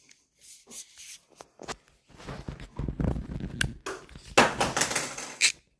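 Handling sounds of a screwdriver and its packaging: irregular clicks, rubbing and rustling, busier and louder in the second half.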